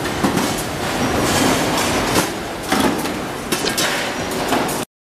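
Metalworking factory machinery running: a steady clattering din with irregular sharp metal clanks, cutting off abruptly near the end.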